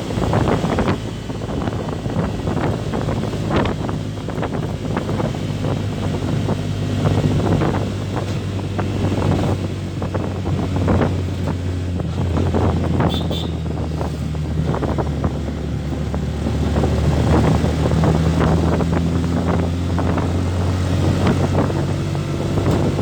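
A motor vehicle's engine running steadily, its pitch shifting slightly now and then, with frequent knocks and rattles and wind buffeting the microphone.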